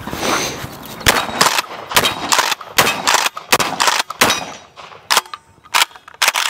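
Kel-Tec bullpup pump-action shotgun fired in a rapid string of shots, with the pump racked between them.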